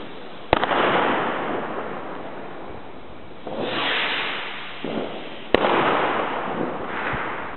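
Small Keller Falcon fireworks skyrockets bursting: a sharp bang about half a second in and another about five and a half seconds in, each followed by a few seconds of hissing, crackling stars, with a rushing noise between them.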